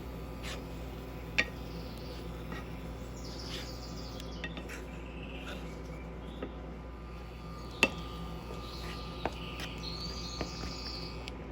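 Utensil clinking against a cooking pot a few times, loudest about a second in and again near eight seconds, while Japanese curry sauce is stirred until it thickens. Soft high chirp-like noises come in between, over a steady low hum.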